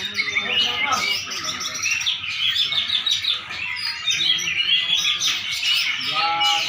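Songbird singing without a break: a rapid, continuous stream of high chirps and trills.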